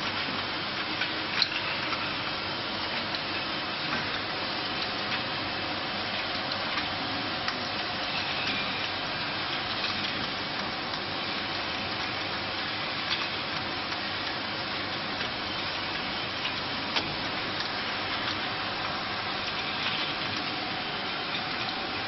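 Automatic rotary bottle-capping (crimping) machine running: a steady mechanical whirr and hiss with occasional sharp clicks as glass olive oil bottles and moving parts knock together.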